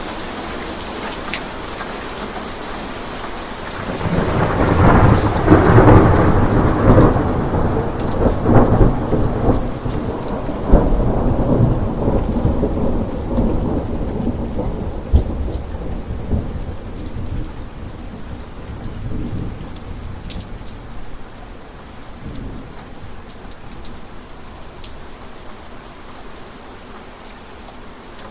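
Steady rain falling, with a long roll of thunder that starts about four seconds in, is loudest over the next few seconds with several cracks, and rumbles away slowly through the rest, leaving the rain.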